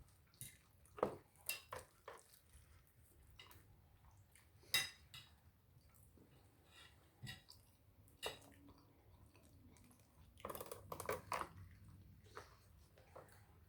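Eating a seafood boil by hand: scattered clicks and taps of shrimp and crab shells being handled over the pan, with chewing. A quick flurry of clicks comes about three quarters of the way through.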